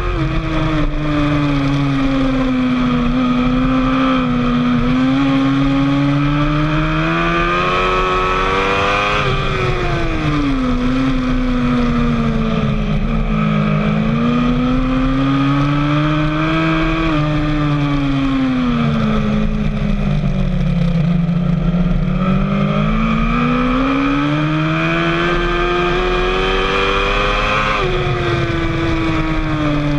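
Sport motorcycle engine heard on board while lapping a track, its pitch climbing under acceleration and falling again several times, with a sharp drop near the end as the throttle closes.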